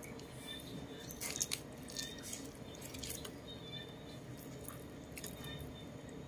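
Whole roast chicken being torn apart by hand: moist squishing and tearing of skin and meat, with a few sharp crackles, the loudest about a second and a half in.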